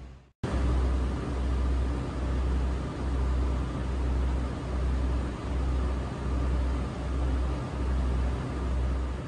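Sightseeing boat under way on a lake: a steady rush of wind and water noise with a low, regular throb, about three pulses every two seconds.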